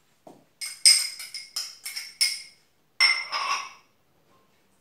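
A metal utensil clinking against a glass bowl: a quick run of about six ringing strikes, then a couple more after a short pause.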